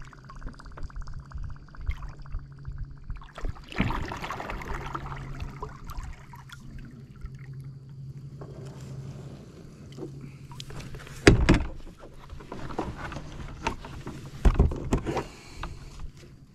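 A kayak being paddled in to the bank: water swishing with the strokes and several sharp knocks of the paddle or hull, the loudest about eleven seconds in. A low steady hum runs underneath.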